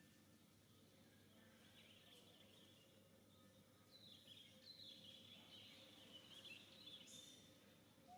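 Faint, high-pitched chirping calls from a small animal. A few come about two seconds in, then a quick run of short falling notes about four seconds in, over a steady low hum.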